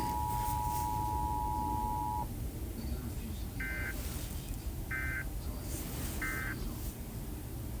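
Emergency Alert System signal tones: the steady two-pitch attention tone cuts off about two seconds in, followed by three short, identical digital data bursts (SAME-style squawks) about a second and a quarter apart. A low hum runs underneath.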